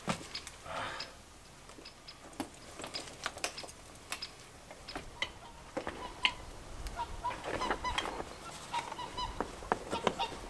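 A leather haversack and gear being handled: scattered clicks, knocks and rustles. From about six seconds in, a run of short, repeated honking animal calls sounds alongside it.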